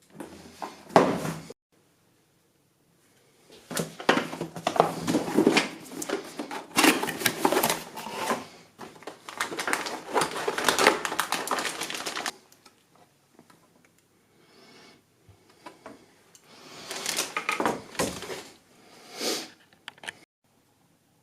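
Close clicking, clattering and rustling of hands handling computer parts, in three bursts: a short one at the start, a long one from about 3.5 to 12 seconds, and another near the end.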